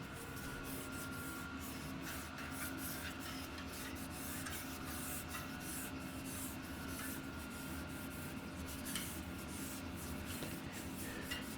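Hands working a rubber mountain-bike tire and foam tire insert on the wheel: continuous rubbing and scraping with many short irregular strokes.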